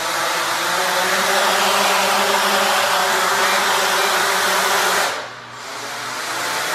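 MJX Bugs 3 quadcopter's brushless motors and propellers whirring steadily under power. About five seconds in the whir drops away sharply for half a second, then spins back up.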